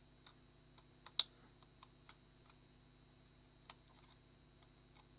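A few faint, sparse clicks and taps of small metal camera parts and repair tools being handled, with one sharper click about a second in.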